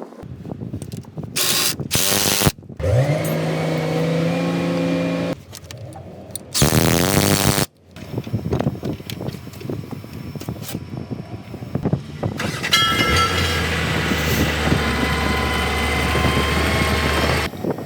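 Engine of a heavy vehicle heard in a string of short cuts: an engine catching, its pitch sweeping up and settling to a steady run, a loud burst of noise, then a steady low engine hum with a faint high whine near the end.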